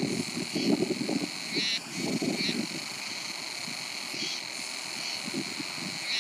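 A steady high-pitched insect chorus that swells briefly a few times, with gusts of wind buffeting the microphone.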